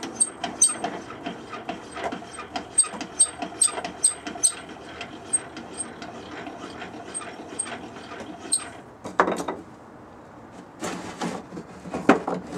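Large semi-truck oil filter canister twisted on a wooden board against a Sharpie marker tip, giving an irregular run of short squeaks and scrapes. Near the end come a few louder scraping knocks.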